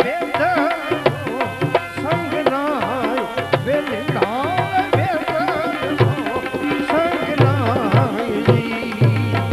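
Gujarati devotional bhajan music: tabla keeping a steady beat with deep bass strokes under a melody line full of bends and wavering glides.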